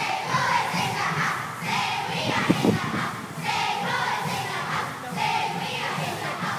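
Squad of young girls chanting a cheer together in short rhythmic phrases, with two sharp knocks about two and a half seconds in.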